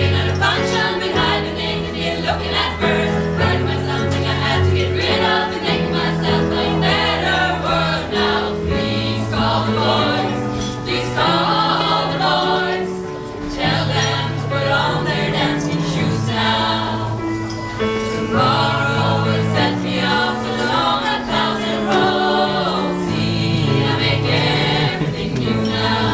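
A choir singing in parts, with long held low notes underneath the shifting upper voices.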